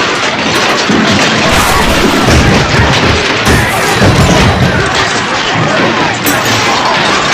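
Bar-brawl 'fight cloud' sound effect: a dense, continuous jumble of thumps, crashes and voices, with a cluster of heavy low thuds in the middle.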